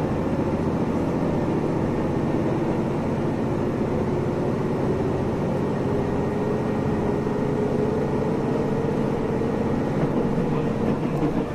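KiHa 75 diesel railcar's Cummins engine running under power as the train pulls out of the station, heard from inside the car: a steady drone with a tone that rises slowly in pitch as it gathers speed.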